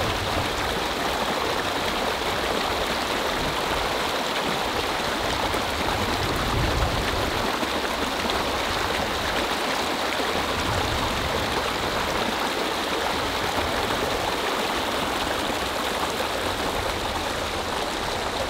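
A small mountain stream rushing steadily over stones.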